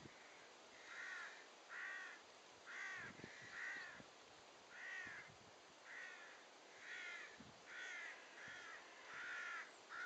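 A crow-type bird (corvid) cawing faintly and repeatedly, a steady series of short harsh calls at about one a second, starting about a second in.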